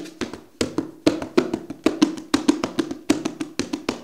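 Rapid, fairly even tapping, about five sharp taps a second, over a steady low tone, with a music-like rhythm.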